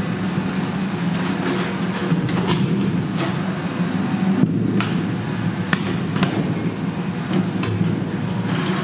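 High-reach demolition excavator running steadily while its demolition jaws crunch and tear at a steel-and-concrete silo. Irregular cracks and metal clanks sit over the engine hum, with one sharper crack around the middle.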